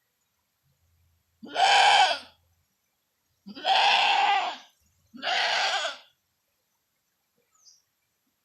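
A goat bleating three times, each call lasting about a second, as it is left alone and frightened to jump the canal.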